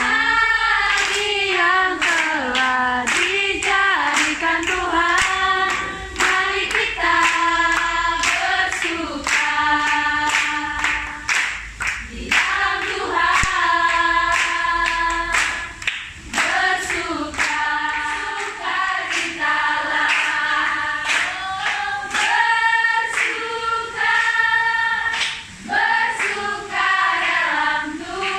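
A group of women singing a song together, with hand claps keeping a steady beat roughly twice a second.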